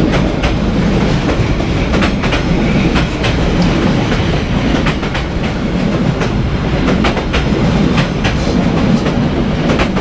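Passenger train coaches passing at close range: a loud, steady rumble of steel wheels on the rails, broken by sharp clacks several times a second as the wheels cross rail joints.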